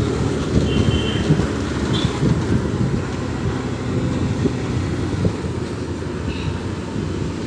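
Street traffic noise: a steady low rumble of road vehicles passing, with a few faint short high tones.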